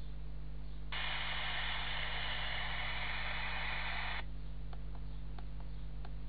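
Hiss of white-noise static from an Eachine LCD5802D FPV monitor's speaker, the sound of a receiver picking up no video signal. It comes on suddenly about a second in and cuts off after about three seconds, followed by several light clicks of the monitor's buttons being pressed.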